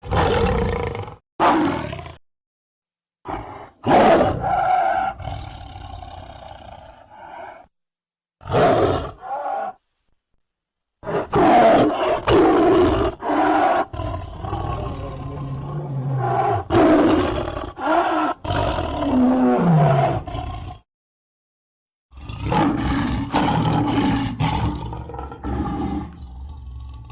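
A string of animated-film lion roars, clip after clip with short silent gaps between them; the longest stretch in the middle runs about ten seconds, with the roars rising and falling in pitch.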